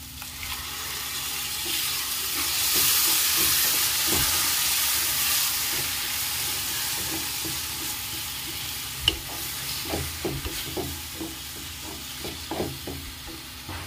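Ground tomato puree sizzling as it hits hot oil, fried onions and ginger-garlic paste in a kadhai. The sizzle builds over the first few seconds and then slowly eases, while a spatula stirs and scrapes the pan, with one sharp knock about nine seconds in.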